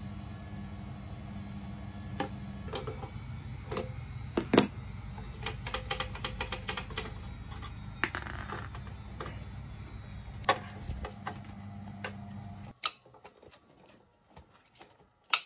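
Small parts and tools being handled at a workbench: scattered clicks and light knocks, the loudest a sharp knock about four and a half seconds in, over a steady low hum that cuts off abruptly near the end.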